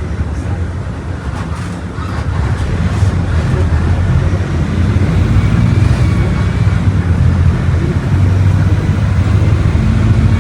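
Volkswagen Volksbus 17.230 Euro VI bus diesel engine running with a steady low drone, growing louder about two seconds in as it pulls.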